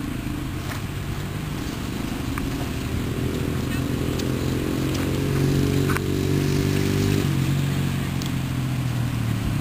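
A motor vehicle's engine running steadily close by, its pitch rising gently for a few seconds, then dropping about seven seconds in.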